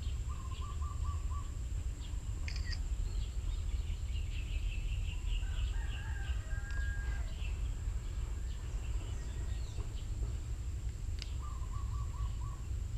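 Birds calling in the background: a quick series of short repeated notes near the start and again near the end, and a faster chattering run of higher notes in the middle. Under them runs a low steady rumble and a constant high-pitched tone.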